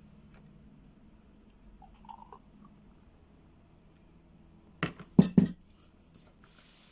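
Stemmed glasses of strawberry milk being set down and moved on a glass-topped table: a few sharp clinks in quick succession about five seconds in, over quiet room tone.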